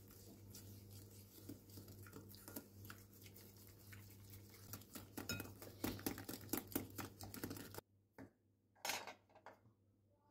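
Wire whisk beating eggs and sugar in a ceramic bowl, its wires clattering rapidly against the bowl, getting faster and louder in the second half. It stops abruptly about eight seconds in, followed by a few light knocks.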